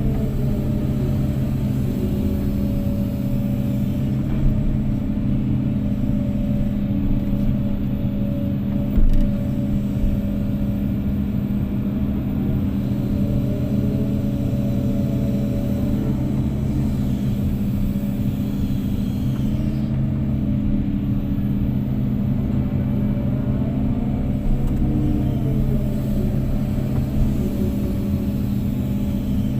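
Kobelco excavator's diesel engine running steadily at working speed, with a higher whine that rises and falls every several seconds.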